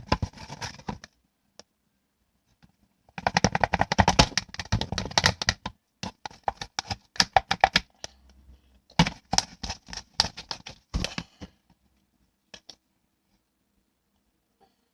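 Slime squeezed and worked by hand, giving bursts of rapid crackling and popping clicks. The first and loudest burst comes about three seconds in, and two more follow.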